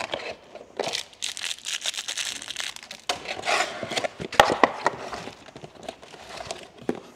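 Cardboard box flaps and a cardboard insert being handled and pulled open, with crinkling plastic wrap and many short sharp clicks and knocks; one louder knock about four and a half seconds in.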